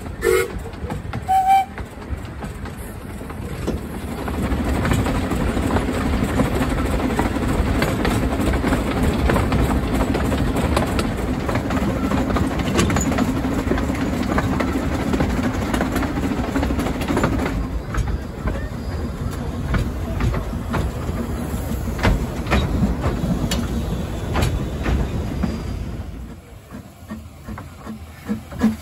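Narrow-gauge quarry Hunslet steam locomotive running along the line, heard from its footplate: a steady rumble of wheels and motion with clicks over the rail joints. A short whistle toot comes about a second and a half in, and the running gets quieter about two-thirds of the way through.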